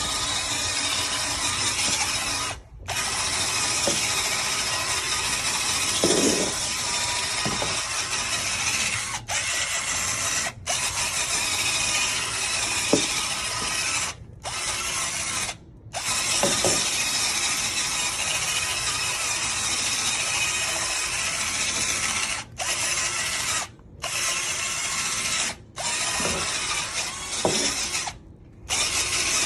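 Shark vacuum cleaner running over carpet, a steady rushing whir with faint rattles, cutting out briefly about ten times.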